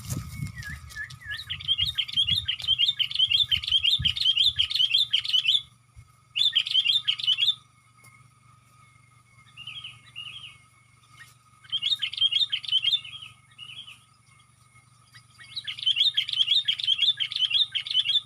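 Sooty-headed bulbul (kutilang) chattering in rapid, repeated chirps, in several bursts of one to four seconds with short pauses between, one softer burst in the middle.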